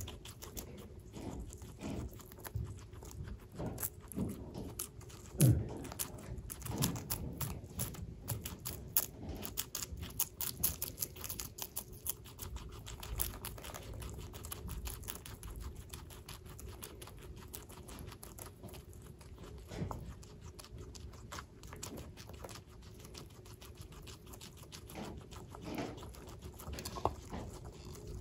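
Guinea pigs chewing crisp romaine lettuce up close: a rapid, uneven run of small crunching clicks, with one louder knock about five seconds in.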